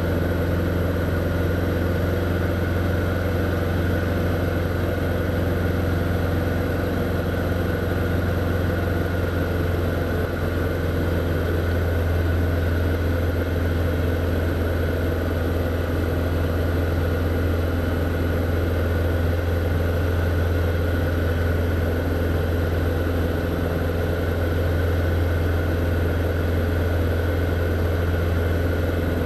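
Single-engine light propeller plane's engine and propeller droning steadily in flight, heard from inside the cockpit as a deep, even hum.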